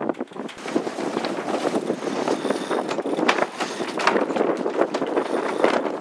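Wind and water noise aboard a sailing yacht under way: a steady rushing with a rough, crackling edge.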